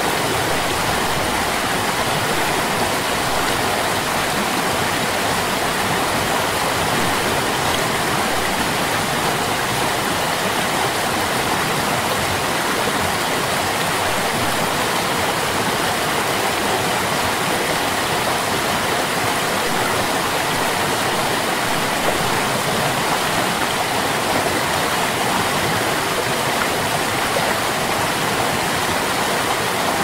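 A stream running steadily, with water rushing in an even, unbroken wash.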